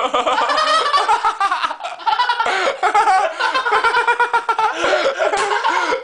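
People laughing hard without a break, several voices overlapping.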